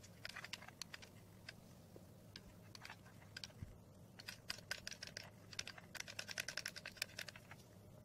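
Small stones clicking and tapping against one another and on cardboard as they are handled, in faint irregular runs of clicks that come quickest near the end. A faint steady low hum sits underneath.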